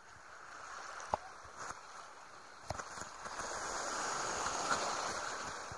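Ocean surf washing onto the beach: a wash of waves that builds about three seconds in and fades near the end. Two short clicks come before it.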